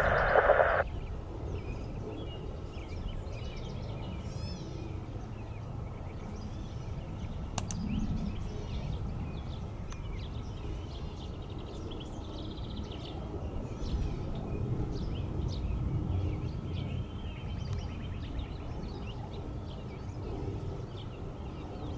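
Small birds chirping repeatedly over a steady low outdoor rumble, with a single sharp click about seven seconds in.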